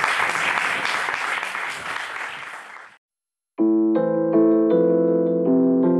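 Audience applauding, fading out and cutting off about three seconds in. After a brief gap, piano music starts, single notes in a slow melody over held chords.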